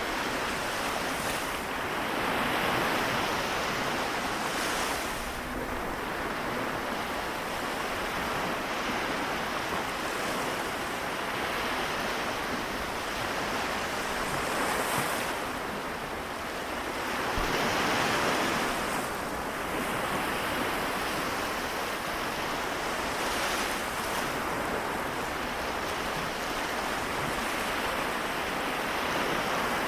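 Small waves washing onto the shore of the Seto Inland Sea, a steady rush of surf that swells gently every few seconds.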